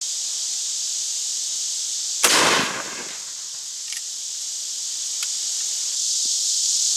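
Reproduction 1847 Springfield Dragoon Carbine, a smoothbore muzzleloader, firing a single black-powder round-ball shot about two seconds in. The report trails off over about half a second. A steady high insect buzz runs underneath.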